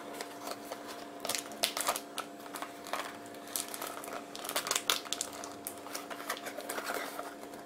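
Cardboard and paper packaging of a phone box handled and pulled apart by hand: irregular crinkles, scrapes and sharp little clicks, in uneven clusters, over a faint steady hum.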